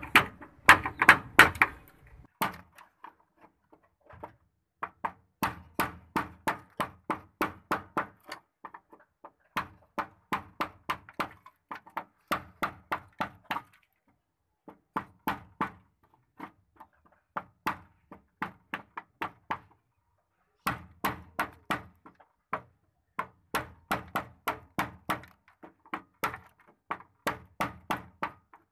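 Hammer striking a cold chisel to cut through the rusted sheet-steel floor pan of a Suzuki Khyber, about three sharp metallic blows a second, in runs of a few seconds with short pauses between.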